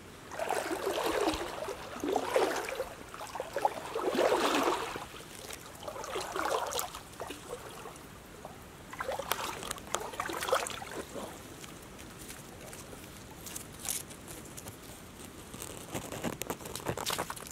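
Shallow stream water sloshing and trickling in several irregular bursts as a stick is worked in it, followed by a few light ticks and rustles.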